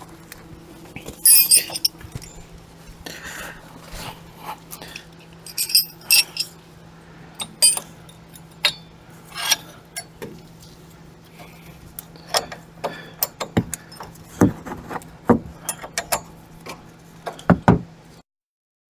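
Metal hand tools and hardware clinking and knocking at irregular intervals while a front shock absorber is being fitted and bolted on. A few strikes ring briefly.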